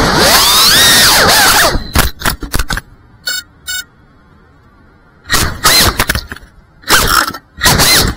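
Cinelog 35 cinewhoop's motors and propellers whining, rising and falling in pitch for the first two seconds. The throttle is then cut, leaving a few clicks and short stutters and a quieter stretch. After that come four or five sharp throttle punches, each a brief whine that bends in pitch.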